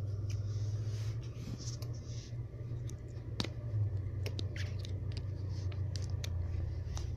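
Handling noise on a phone's microphone as a baby grabs and plays with it: scattered taps, clicks and rubbing over a low steady hum, with the sharpest click about halfway through.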